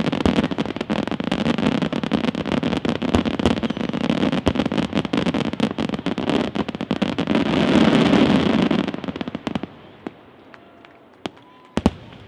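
Aerial fireworks barrage: a dense, continuous run of shell bursts and crackling that swells to its loudest about eight seconds in, then stops suddenly. A few single bangs follow near the end.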